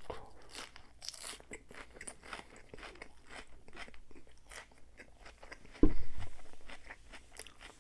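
Close-miked chewing of a mouthful of salad with crisp lettuce: a steady run of wet crunches. About six seconds in comes one louder low thump that fades away.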